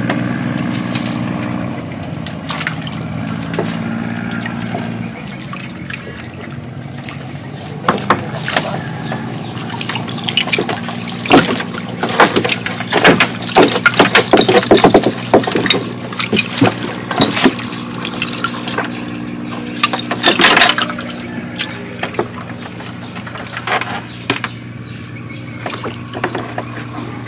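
Small engine idling steadily, with water splashing and sloshing and scattered knocks over it, heaviest from about 8 to 21 seconds in.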